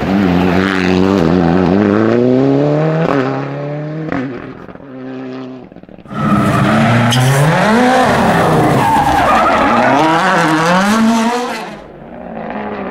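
Abarth 124 Rally's turbocharged four-cylinder engine accelerating hard out of a tarmac hairpin, its pitch climbing through the gears and then fading away. About halfway through, a rally car engine comes in loud again, revving up and down between gear changes, and drops off sharply near the end.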